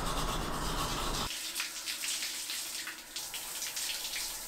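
Brief scrubbing of a toothbrush, then, after an abrupt change about a second in, a handheld shower running and splashing as water is rinsed through long wet hair.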